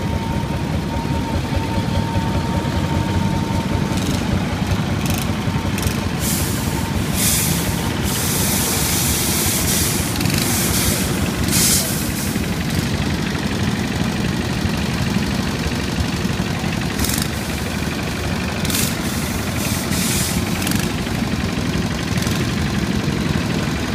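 Small Howard 2000 ride-on garden tractors going past one after another, their engines running steadily at low speed. Short bursts of hiss come and go through the middle of the stretch.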